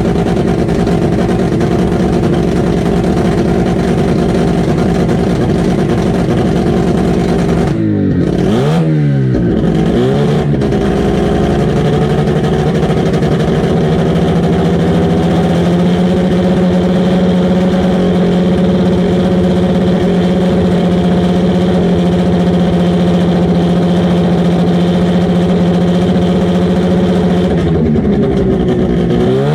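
Car engine running, its pitch dipping and picking back up a few times about eight to ten seconds in, then holding steady, with another dip near the end.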